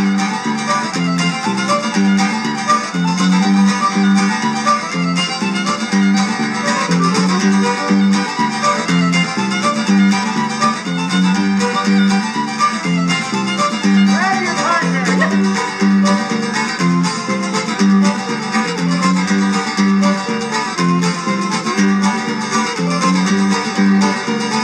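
Fiddle playing a reel over a steady rhythmic guitar accompaniment.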